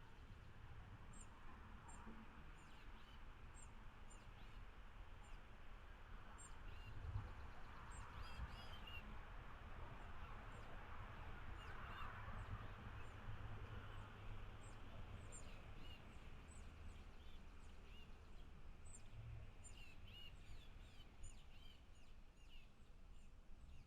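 Small birds chirping: many short, high calls scattered throughout, over a faint low rumble and a hiss that swells around the middle.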